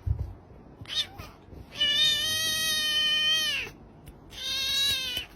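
Domestic cat meowing twice: one long drawn-out meow that holds its pitch and drops at the end, then a shorter meow about a second later.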